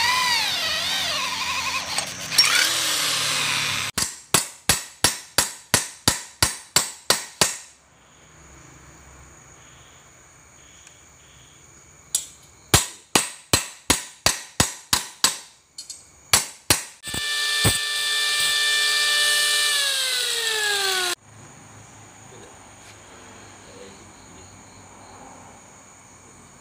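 Electric drill boring into a steel bracket clamped in a vise, the bit squealing with a wavering pitch. Then a run of hammer blows on the metal in a vise, about three a second, with more hammering after a pause. A second drill run follows, its pitch falling steadily before it cuts off, and crickets chirp steadily in the quiet stretches.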